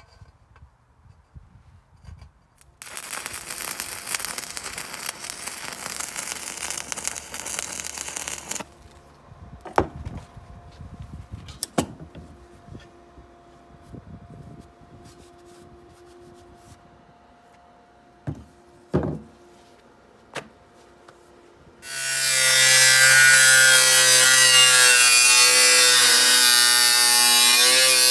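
Electric arc welding crackling for about six seconds, then a few metal knocks. About 22 seconds in, an angle grinder with a cut-off disc starts and runs loud and steady, cutting through steel sheet.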